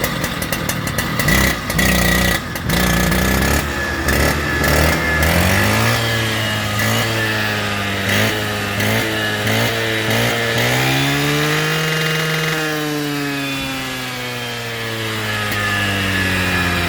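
K1260 two-stroke concrete power cutter engine running, rough and uneven at first. It then revs in quick blips, climbs to a high rev about twelve seconds in, and slowly drops back down.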